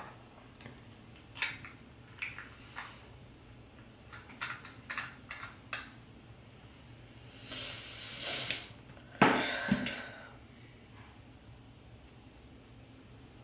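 Small clicks, taps and clinks of makeup containers and tools being handled, with a louder knock and brief clatter about nine seconds in.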